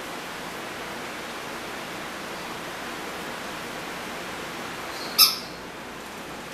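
Steady background hiss, with one short, sharp, high-pitched sound about five seconds in that dies away quickly.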